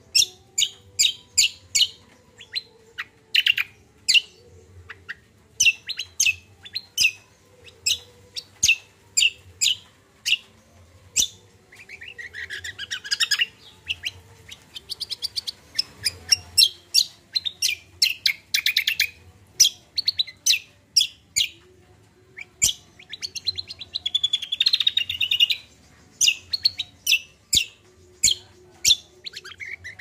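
Caged kacial songbird singing: a string of short, sharp chirps one to three a second, broken by longer warbling phrases about twelve seconds in and again near twenty-four seconds.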